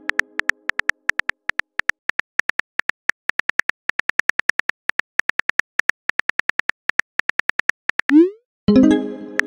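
Simulated phone keyboard clicks from a texting-story app, a rapid even tapping at about five taps a second as a message is typed. About eight seconds in, a short rising whoosh and then a ringing chime mark the message being sent.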